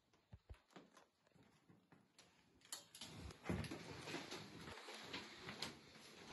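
Soft footsteps and handling noise from a hand-held phone camera moving into a small tiled bathroom. A sharp click comes just under three seconds in, then a louder, irregular rustling with small knocks.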